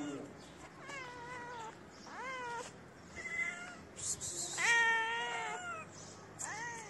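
Cat meowing five times in a row, several of the meows rising in pitch, the longest and loudest one about two-thirds of the way through.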